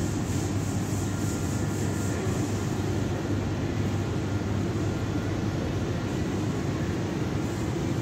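Steady low rumbling background noise inside a supermarket, with no distinct events.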